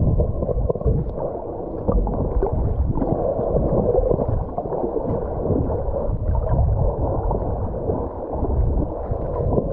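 Muffled underwater water noise on a submerged camera: water sloshing and bubbling around the housing, with irregular crackles.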